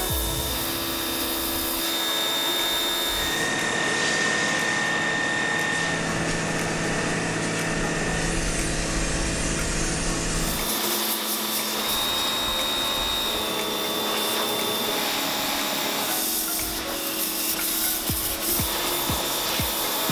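Pressure washer jet spraying water against a grimy truck axle and chassis, a steady hiss, under background music with held notes.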